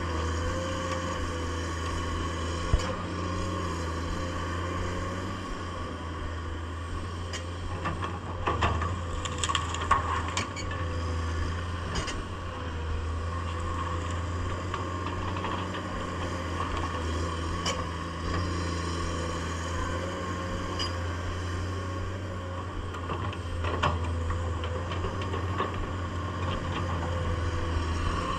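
Komatsu PC210 excavator's diesel engine running steadily under work, with a few sharp knocks and clicks now and then.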